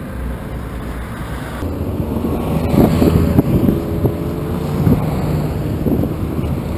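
Freeway traffic passing, with wind buffeting the microphone of a bicycle-mounted action camera; the rumble swells about two seconds in and is loudest around three seconds in.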